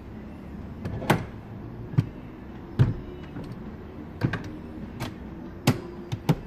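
Volkswagen New Beetle front seat being adjusted: a string of sharp clicks and clunks from the seat's latches and runners as the backrest is tipped forward and the seat slides on its rails.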